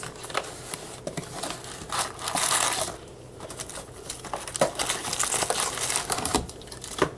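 Crinkling and tearing of plastic wrap as a trading-card hobby box is unwrapped, with a longer, louder rip about two seconds in.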